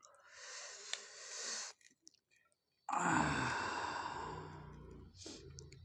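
A man breathing out heavily twice: first a breathy exhale, then about three seconds in a long voiced sigh that falls in pitch and fades away.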